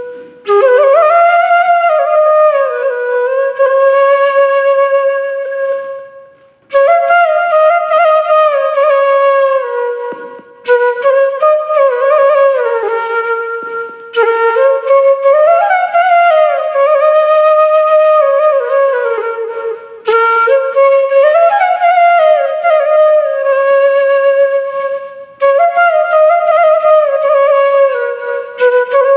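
A flute playing a slow melody with gliding, bending notes, in phrases of a few seconds separated by brief breaks.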